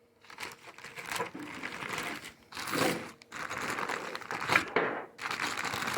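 Plastic packaging rustling and crinkling as small lathe accessories and hand tools are unwrapped and handled, with scattered light clicks.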